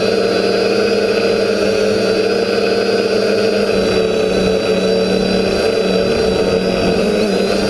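TBS Discovery quadcopter's electric motors and propellers whining steadily in flight, the pitch holding nearly level with a slight shift near the end.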